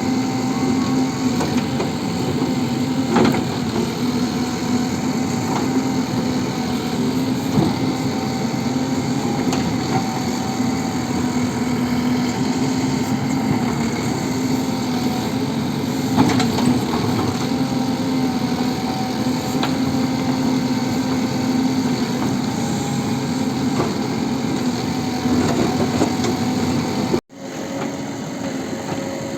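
Diesel engine of a Tata Hitachi Shinrai Prime backhoe loader running steadily at working speed, with a few sharp knocks along the way. Near the end the sound cuts off abruptly and comes back quieter.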